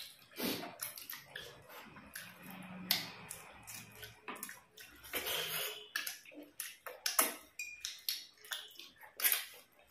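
Close, wet eating sounds of people eating rice and curry with their fingers: lip smacking, chewing and squelching, with many short sharp wet clicks.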